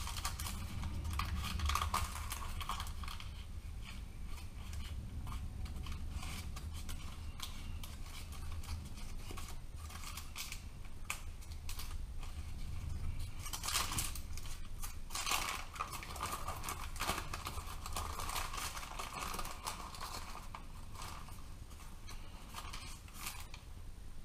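Baking paper crinkling and rustling in irregular bursts, with small crackles and ticks, as hands lift it to roll up a sheet of topped focaccia dough on a wooden board.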